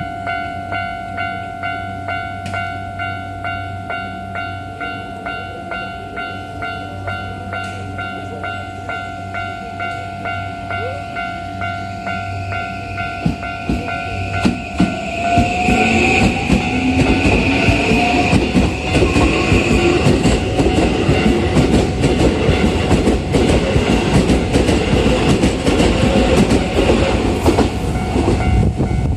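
Level-crossing warning bell ringing in a steady pulsing rhythm. About halfway through, a Toei 5500 series electric train comes in with its motor whine rising in pitch as it gathers speed, and loud wheel and running noise that drowns out the bell.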